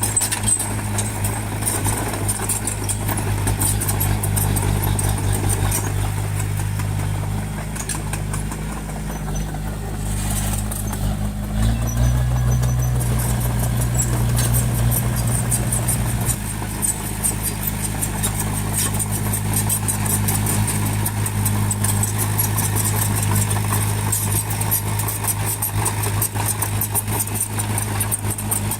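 Bulldozer's diesel engine running steadily. About twelve seconds in it picks up in pitch and loudness, as under load, then settles back about four seconds later. A fast, high ticking runs underneath.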